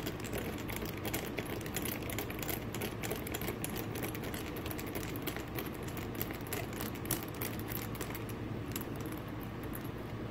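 A T5 Torx screwdriver turning a long screw out of a Garmin nuvi 350's frame: a rapid run of fine clicks and scratches that thins out near the end, over a steady low hum.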